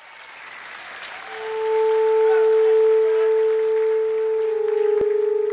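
Audience applause fades in. A little over a second in, the band's steady held note enters and swells louder, with a fainter higher tone above it. One sharp click sounds near the end.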